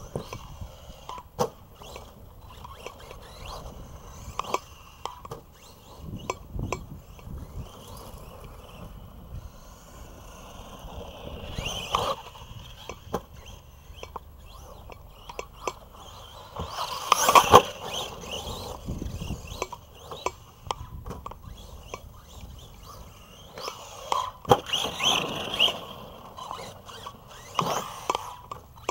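Arrma Big Rock electric RC monster truck being driven hard over dirt and grass: motor whine and tyre scrabble rising and falling with the throttle, broken by sharp knocks and scrapes from jumps and landings, the loudest cluster about halfway through and another near the end.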